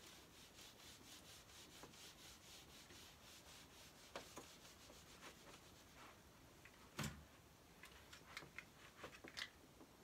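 Faint quick rubbing of a whiteboard being wiped clean, about five strokes a second, followed by a sharp knock about seven seconds in and a few light taps near the end.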